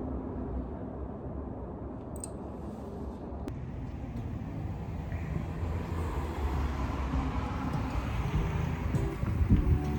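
Steady low rumble of vehicle or traffic noise, slowly growing louder, with music starting to come in near the end.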